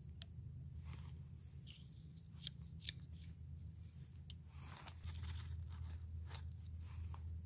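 Faint clicks and short scrapes of a plastic measuring spoon against a small bottle and an aluminium mess tin as liquid seasoning is added and stirred in, over a low steady hum. A brief rustle of plastic wrapping comes about five seconds in.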